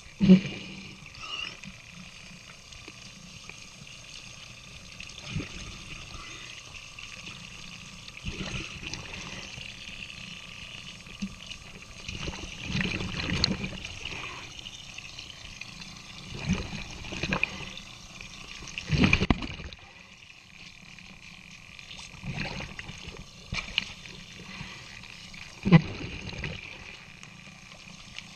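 Water pouring from a hull's through-hull outlet into the water at the waterline, with splashing and irregular louder swishes every few seconds as a scrub pad is worked over the hull by hand.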